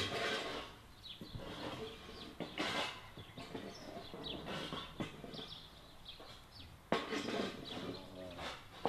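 Small birds chirping in short high calls, with a few sharp knocks and rustles; about seven seconds in, a knock is followed by a brief lower-pitched call.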